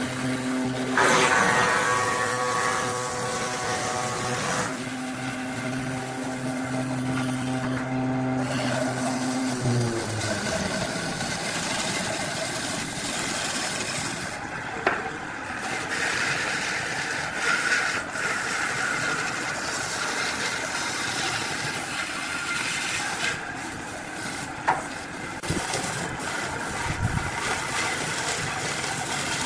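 Woodworking machine motor, likely a lathe, running with a steady hum that drops in pitch and winds down about ten seconds in, followed by a steady rushing noise with a few sharp clicks.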